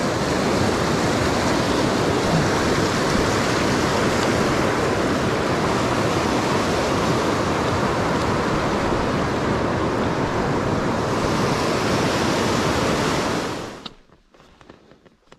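Rushing river water, a loud steady rush. It cuts off abruptly near the end, leaving a quiet background with a few faint clicks.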